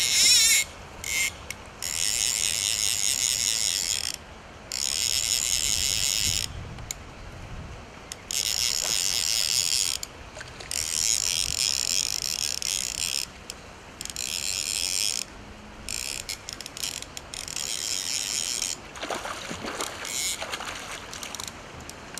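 Fly reel's click-and-pawl ratchet buzzing in runs of one to two and a half seconds, breaking into shorter spurts near the end, as a hooked trout is played on a fly rod.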